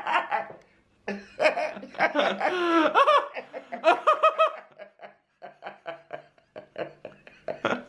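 A woman laughing with her lips held wide open by a cheek-retractor mouthpiece, in bursts of wavering, gliding pitch and quick pulses, followed by a few faint clicks.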